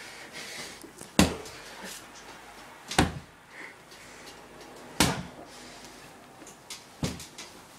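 Four hard thumps about two seconds apart, the first the loudest: blows landing on someone lying in a bed under the covers, with rustling of the bedding between them.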